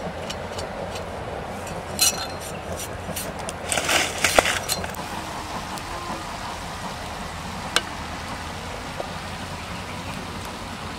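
Metal ladle clinking and scraping against a wok while pork is stirred. There are a few sharp clinks about two seconds in, a dense run of scrapes around four seconds, and a single clink near eight seconds, over a steady background hiss.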